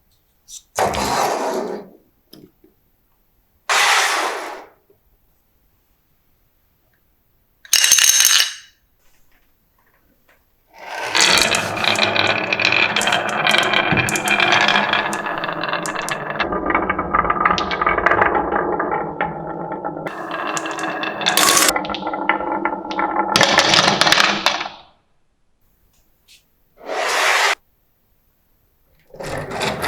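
Marbles rolling and clattering down a marble run's tracks. There are three short bursts in the first half, then a long unbroken run of rolling and clacking lasting about fourteen seconds, with a low rumble joining partway through, and one more short burst near the end.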